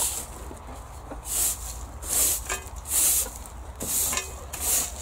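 Stiff-bristled broom sweeping a concrete paving slab: short rasping strokes, about one a second.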